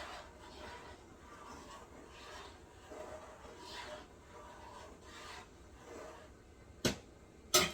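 Spoon stirring macaroni in a pot on the stove, scraping the pot in repeated strokes. Two sharp knocks come near the end.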